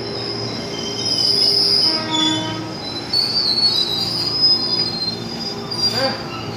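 Old KRL commuter electric train passing close by, its steel wheels squealing in high, wavering tones over a steady rumble, with a sharp knock about six seconds in.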